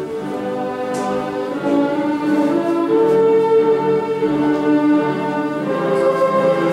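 Orchestral music with bowed strings, moving in slow, long-held notes.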